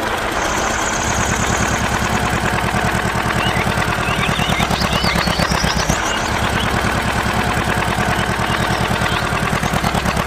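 Tractor engine chugging steadily with a fast, even beat, with a few high chirps over it in the middle.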